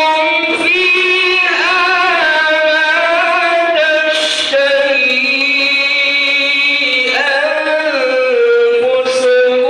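A man reciting the Qur'an in a melodic, chanted style into a microphone, holding long notes that slide and step between pitches.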